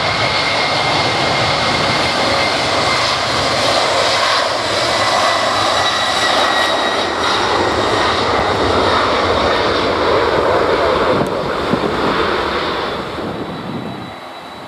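Boeing 767's General Electric CF6 turbofan engines at takeoff power on the departure roll: a loud roar with a steady high whine over it. It fades away about thirteen seconds in.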